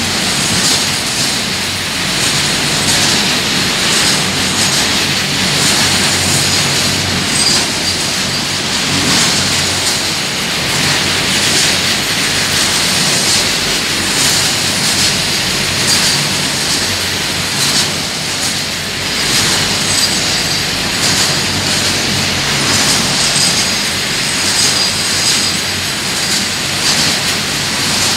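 BCACBM car-carrier freight wagons rolling past close by: a steady, loud rush of wheels on rail, with a faint high wheel squeal and light clicks as the wheels cross the rail joints.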